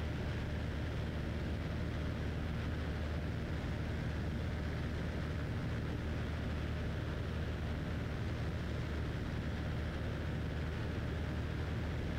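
Cessna 172 engine and propeller droning steadily in level cruise flight, heard inside the cockpit, with a deep hum under a constant rushing noise.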